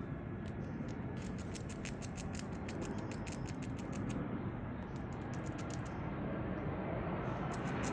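Squirrel gnawing a nut shell: quick runs of sharp clicking and scraping bites, pausing briefly midway and again near the end.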